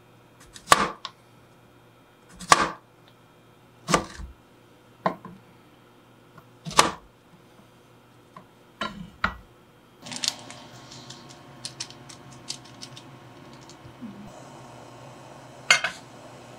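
Chef's knife slicing through a Korean zucchini (aehobak) onto a cutting board: about seven separate sharp chops, irregularly spaced, over the first ten seconds. After that come a run of light clicks and one louder metal clink near the end, as a ladle is handled over a steel pot.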